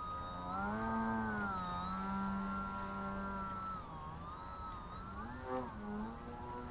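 Electric RC 3D plane's Sunnysky 1800kv brushless outrunner motor and GWS 8x4.3 propeller buzzing, its pitch climbing about a second in, holding, dipping near the middle and blipping up again near the end as the throttle is worked. A thin steady high whine sits above it.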